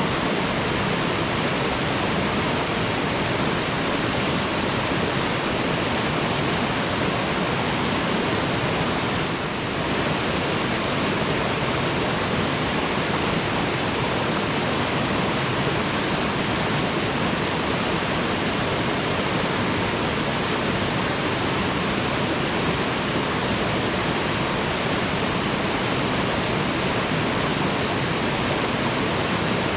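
Waterfall: a steady, even rush of falling water, briefly dipping slightly about nine seconds in.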